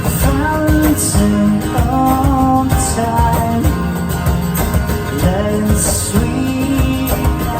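Live band playing an instrumental passage of a country-folk song: a lead melody with sliding notes over guitar accompaniment and a steady beat, with no lyrics sung.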